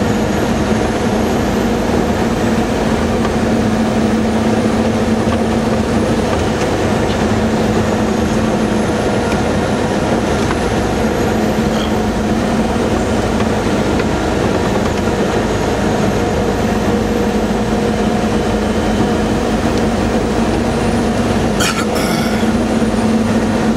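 Steady, loud cabin noise inside a moving military vehicle: engine and drivetrain running with a constant low drone over road rumble. A brief clatter about 22 seconds in.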